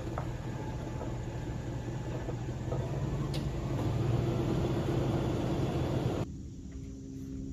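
Toyota Tundra pickup's engine running at low speed as the truck reverses and stops, a steady low hum that cuts off suddenly about six seconds in as the engine is switched off.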